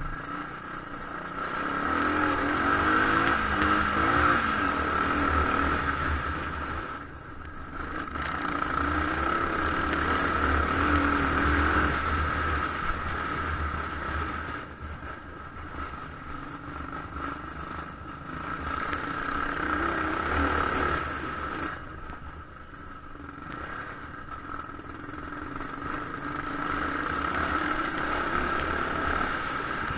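Suzuki DR Big 750's big single-cylinder engine under way, revving up and easing off in surges every few seconds as the throttle is opened and closed, with some clatter from the gravel track.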